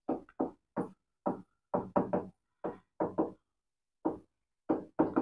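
Marker writing on a whiteboard: a quick, irregular run of about fifteen short taps and strokes, with a brief pause a little past the middle.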